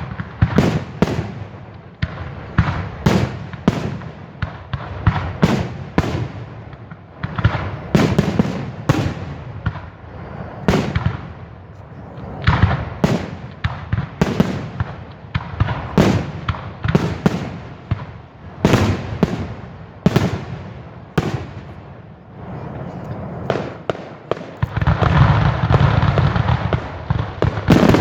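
Fireworks display: a rapid, irregular run of sharp bangs from bursting shells, several a second at times. Near the end the bangs merge into a dense, continuous noise.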